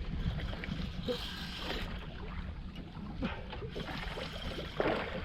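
Water sloshing and trickling around a small fishing boat, with faint scattered clicks and rustles.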